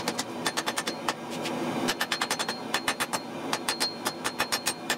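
Hand hammer striking a glowing steel billet on an anvil in a rapid series of blows, several a second, each with a short metallic ring.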